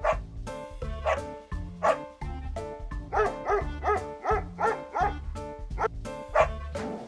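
Dog barking over light children's background music: single barks, then a quick run of about six barks about three seconds in, then a couple more near the end.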